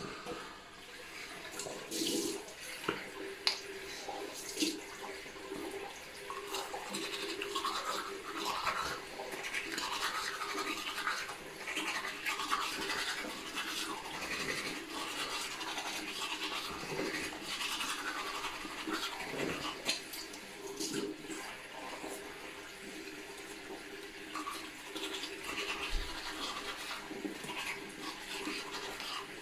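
A toothbrush scrubbing teeth: quick, irregular brushing strokes that keep going without a break, over a faint steady hum.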